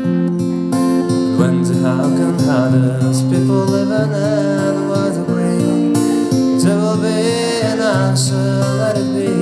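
Acoustic guitar strummed in steady chords, with a man singing along from about a second and a half in.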